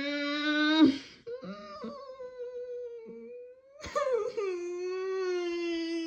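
A cartoon dog's voice humming long held notes, cut short by a sudden hiccup about a second in and again just before four seconds.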